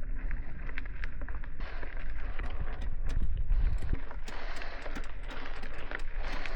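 Mountain bike climbing a dirt trail: tyres crunching over gravel with scattered clicks and knocks, over a steady low wind rumble on the microphone.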